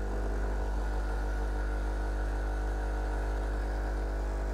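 Sage Bambino Plus espresso machine's vibratory pump running with a steady hum, pushing water against a puck ground too fine (grinder setting 11), so the shot is choked and barely drips.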